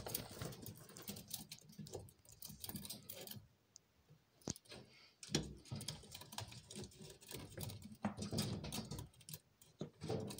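Prairie dog's claws clicking and scratching on a metal mesh ramp as it climbs, with rustling in loose litter bedding: an irregular run of light clicks, with a short lull about a third of the way in.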